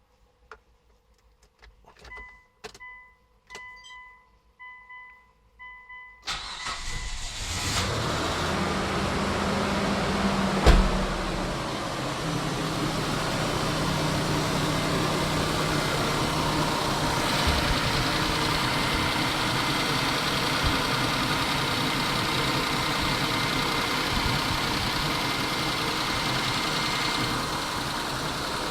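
Clicks and a repeating electronic warning chime, then a Mitsubishi 6G72 3.0-litre V6 cranks and starts with a thump as it catches about ten seconds in. It then settles into a steady idle.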